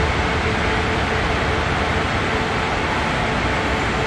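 Daewoo diesel railcar standing at the platform with its diesel engines idling: a steady rumble with a faint constant hum over it, waiting at a signal.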